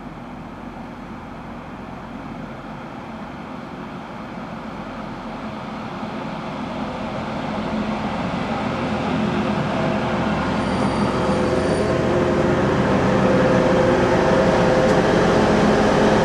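TransPennine Express Class 185 diesel multiple unit approaching on the line, its underfloor diesel engine and wheels on the rails growing steadily louder throughout. An engine drone comes through more clearly in the second half as the unit draws alongside.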